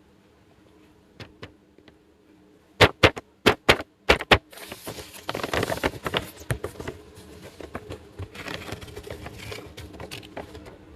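Small plastic toy pieces handled: a quick run of six sharp clacks, then a stretch of rustling with softer clicks.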